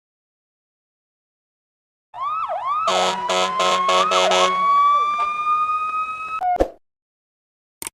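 Electronic emergency-vehicle siren, starting after about two seconds of silence with fast up-and-down yelps. A quick series of about five horn blasts sounds over it, then it settles into a slow rising wail that cuts off abruptly.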